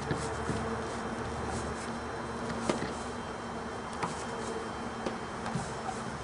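Small clicks and handling noise of stripped copper wires being twisted into a plastic wire nut, over a steady low hum.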